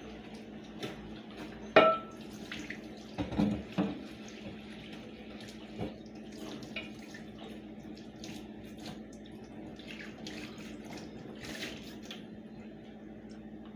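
Water running at a kitchen sink during washing up, with a few sharp knocks and clatters, the loudest about two and three and a half seconds in, over a steady low hum.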